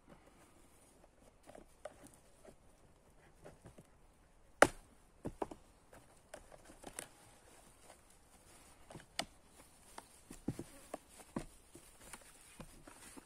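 Irregular light knocks, taps and scrapes of a cardboard box and its packaging being handled and set down on a plastic-covered table, with one sharp knock about four and a half seconds in.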